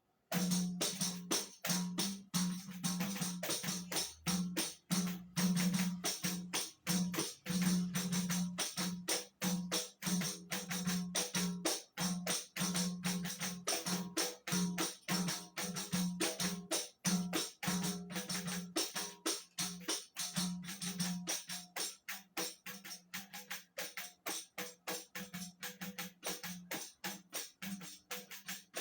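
Tamborim struck with a stick, playing a fast, steady, repeating rhythm of sharp strikes that starts suddenly.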